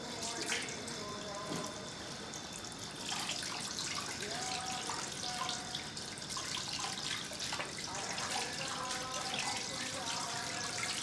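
Water running from a tap into a bathroom sink, splashing unevenly as a foot is washed under it.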